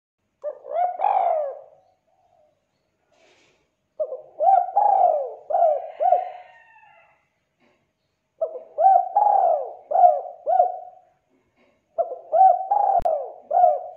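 Spotted dove cooing: four phrases of several quick, arching coos each, with short silences between the phrases.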